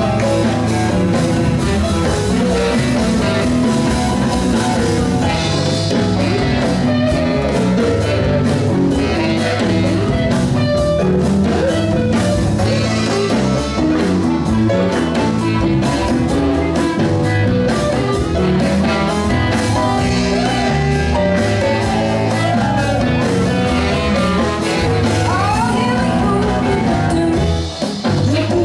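Live rhythm-and-blues band playing: electric guitar over drum kit and bass, with singing.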